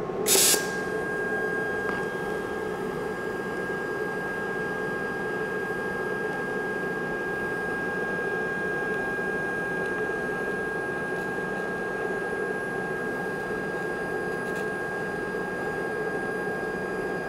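DC TIG welding arc on 1/8-inch aluminum under helium shielding gas, lit with a high-frequency start: a brief crackle about half a second in, then the arc burns with a steady hiss and a thin, constant high whistle.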